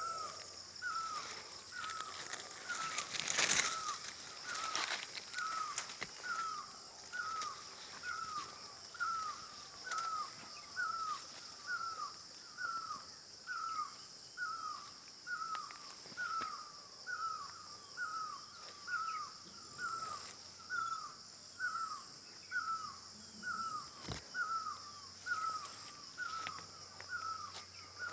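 A bird repeating one short, hooked call very regularly, about once a second, over a steady high-pitched hiss.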